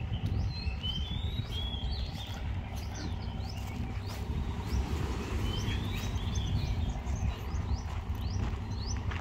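Small birds chirping repeatedly in short, quick notes that rise and fall, over a constant low rumble.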